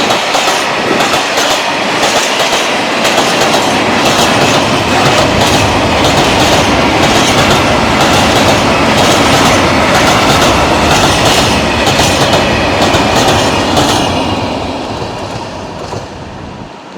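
Freight train of Eas open wagons loaded with iron ore rolling past, the wheels clicking in a steady rhythm over the rail joints. The sound fades away over the last few seconds.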